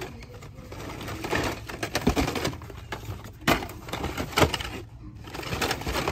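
Hot Wheels cars in plastic blister packs on cardboard cards being rummaged through by hand in a store bin: irregular plastic clacks and card rustling, with a few louder clacks in the middle.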